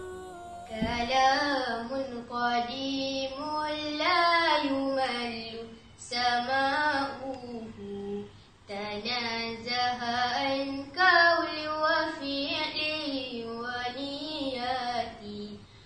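A girl singing solo in nazam style, a Malay devotional chant, in long wavering notes. The voice comes in about a second in, with short breaks around six and eight and a half seconds.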